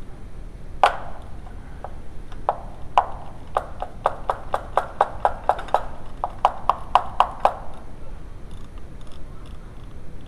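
A ratchet wrench clicking: a run of sharp metallic clicks, sparse at first, then about three a second, stopping about seven and a half seconds in.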